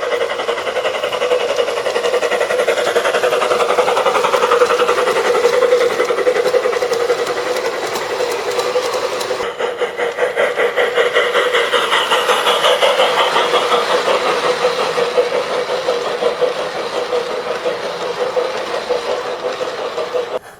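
G-scale garden-railway model locomotive running along the track, a steady fast rattle of wheels and motor. The sound changes character about ten seconds in and cuts off suddenly at the end.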